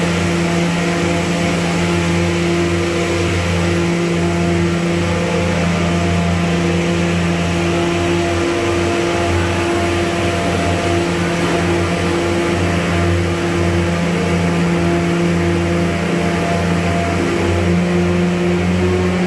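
Five-layer corrugated cardboard production line running: a steady, loud machinery drone with several held tones, as its motors drive the paper webs over the rollers.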